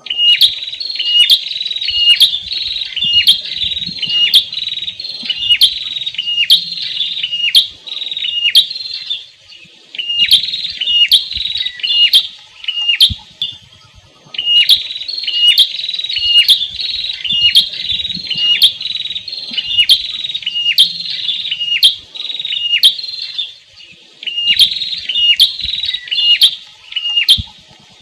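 Male prinia (prenjak) singing: a rapid run of sharp, repeated high notes, about two a second, in long bouts broken by short pauses.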